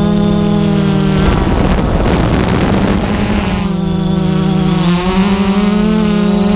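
Multirotor camera drone's motors and propellers humming steadily while it hovers, the pitch shifting slightly. About a second in, a loud rush of noise covers the hum for roughly two seconds.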